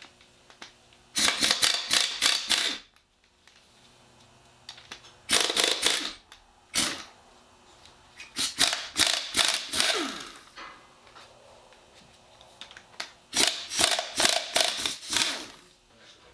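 Socket ratchet clicking in about five quick bursts, each lasting up to two seconds, as nuts on the 351M's connecting-rod caps are worked loose.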